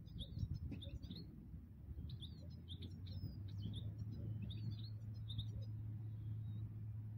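European goldfinches twittering: many short, high chirps in quick clusters, over a low wind rumble. A steady low hum comes in about three seconds in.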